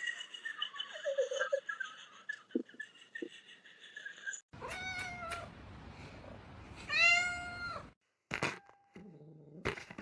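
Domestic cat meowing: a short meow about five seconds in, then a louder, longer meow about two seconds later, followed by a few sharp knocks.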